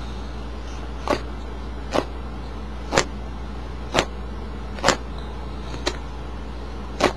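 Denim being scraped by hand in short, sharp strokes, about one a second, seven in all. This is the sound of roughing up the jeans fabric around a cut to fray it.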